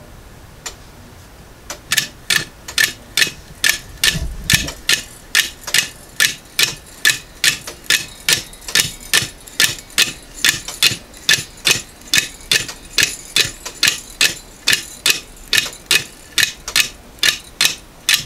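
3D-printed plastic Swiss lever escapement ticking as its balance wheel swings. A few faint ticks come first, then a loud, even ticking of about two and a half sharp ticks a second starts about two seconds in. There is one dull low thump around four seconds in.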